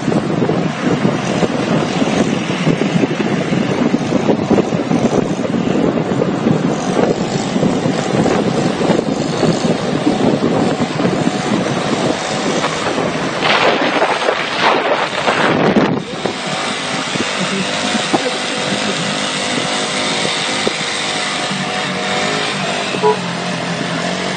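Wind buffeting the microphone over road and traffic noise from a moving car. About 16 seconds in it cuts abruptly to a steadier drone of engines and tyres.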